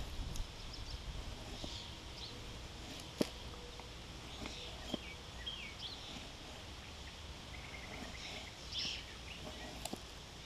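Small birds chirping and calling in the background, with a few sharp clicks and knocks, the loudest about three seconds in, from a knife cutting into cedar.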